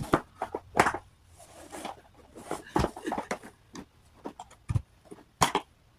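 Scattered clicks, knocks and rattles of plastic parts being unlatched and handled as a part is taken off a vacuum cleaner to reach its dust bag, with a few sharper knocks towards the end.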